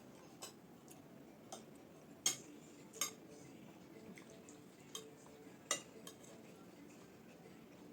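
Eating utensils clinking against plates: about seven sharp, scattered clinks, three of them loud, over a faint steady hiss.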